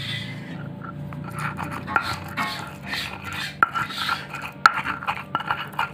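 A stone pestle grinding and scraping a wet spice paste in a stone mortar (cobek), in irregular rasping strokes with a few sharp stone-on-stone clicks.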